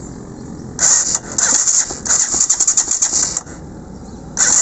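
Single-cylinder air-cooled motorcycle engine running, with two bursts of loud, rapid metallic clatter: one from about a second in to past the middle, and one near the end. Both the intake and exhaust tappets are loose, and metal filings have been found in the fresh oil, a sign of internal engine damage.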